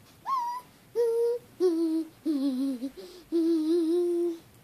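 A young girl humming or whining a string of about five short wavering notes in a high voice, the last one the longest, a playful whimper that sounds like a little puppy.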